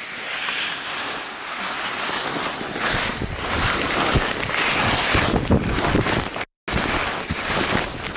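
Wind rushing and buffeting over a microphone carried by a downhill skier, with skis hissing and scraping on snow through the turns. The low rumble grows stronger a few seconds in, and the sound cuts out for a split second about six and a half seconds in.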